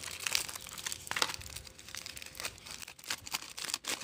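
Aluminium foil wrapping being unfolded by hand, crinkling in an irregular run of crackles.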